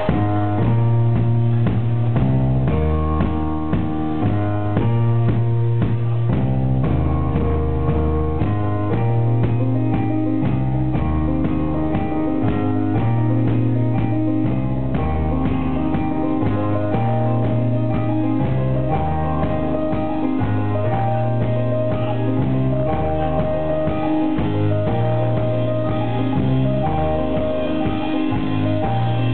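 Live instrumental rock band playing: a synthesizer keyboard, electric guitar and drum kit together over a low, sustained bass line and a steady drumbeat.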